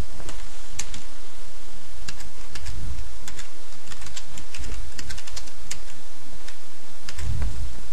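Typing on a computer keyboard: a run of quick, irregular key clicks over a steady background hiss.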